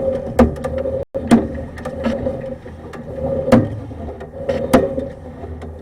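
Sewer inspection camera being worked through a drain line: a steady hum with several sharp knocks and clicks as the push cable is fed and handled.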